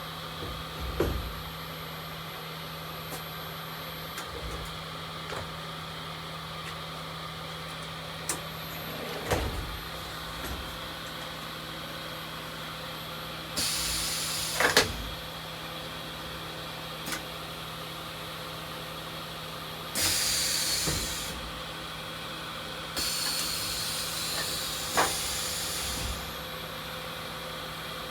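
A steady electrical hum with a constant low tone, broken by a few short knocks and clatters and by three bursts of hiss that each last one to three seconds.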